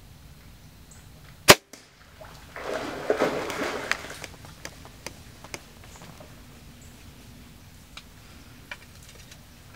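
A single sharp shot at a hog, followed about a second later by a burst of heavy splashing as the hog bolts through the muddy puddle. After that come a few scattered snaps and clicks.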